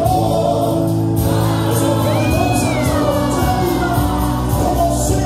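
Gospel praise music: a choir singing over steady instrumental accompaniment with a low bass line.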